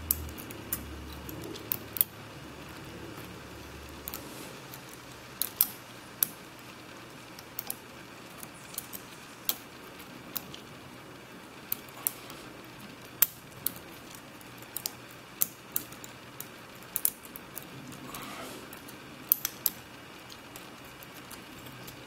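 Irregular small metallic clicks and ticks of a lock pick and tension wrench working the pins inside the keyway of a CISA 220/50 pin-tumbler padlock loaded with spool pins, during single-pin picking. The clicks come singly or in quick pairs and clusters, from several seconds apart to a few a second.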